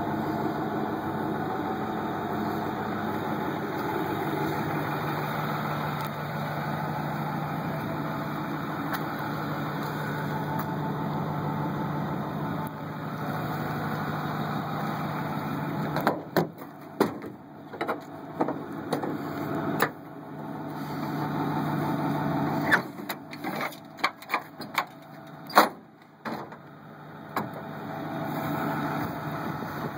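Ford F-250 Powerstroke diesel engine idling steadily. About halfway through, a string of sharp clicks and knocks breaks in and the idle drops away at times, returning fainter near the end.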